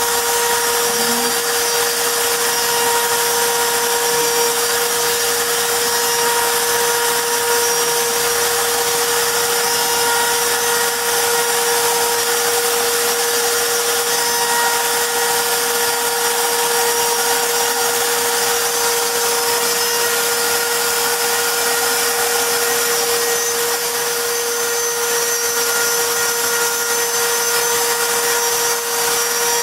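CNC router spindle running steadily while engraving a wooden plaque: a constant whine over an even hiss of cutting, with no change in pitch.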